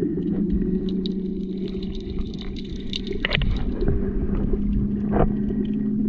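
Underwater ambience heard through an action camera in its housing: a steady low rumble with a held, humming drone, and scattered faint clicks and crackles, a couple of them sharper about three and five seconds in.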